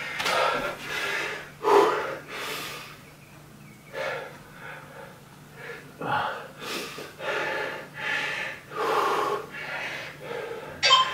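A man breathing hard in quick, heavy breaths, catching his breath after a high-intensity exercise interval. There is a short lull about three seconds in.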